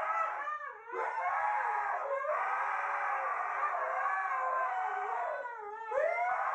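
Husky howling in long, wavering howls that rise and fall in pitch, with short breaks about a second in and again near the end.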